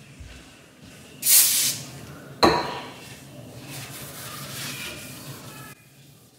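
A short hiss from an aerosol spray can about a second in, then a sharp clink as the can is set down on the stone countertop, followed by a paper towel rubbing over a cabinet drawer front; the sound drops away abruptly near the end.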